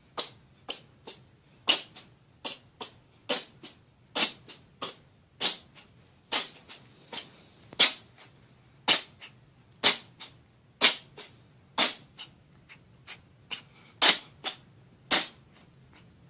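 Cat sneezing over and over in a long fit: about thirty short, sharp sneezes, often in quick pairs.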